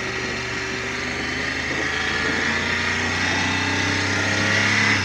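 BMW F 900 R parallel-twin engine through its stock exhaust, held at a steady raised speed of about 4250 rpm for a stationary noise test, growing slightly louder, then dropping off suddenly at the end as the throttle is snapped shut.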